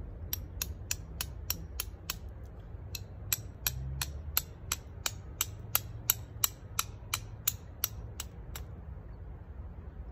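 Flint struck again and again with a steel striker to throw sparks: sharp scraping clicks about three a second, with a short pause about two seconds in, stopping near the end.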